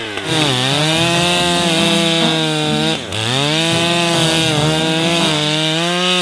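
Two-stroke chainsaw running hard while cutting through lake ice. Its engine note sags sharply twice, just after the start and again about halfway through, then climbs back to full revs each time.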